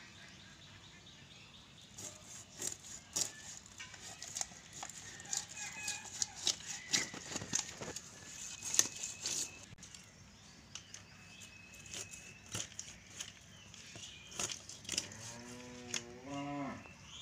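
Sharp irregular clicks and scrapes of a large carp being scaled and cut on a boti, a curved floor-mounted blade, busiest in the first half. Near the end a farm animal gives one bending call of about a second and a half.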